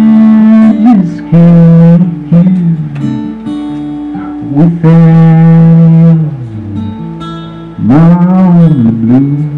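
Live solo song on guitar: long held notes that bend and slide in pitch, rising and falling in loudness several times.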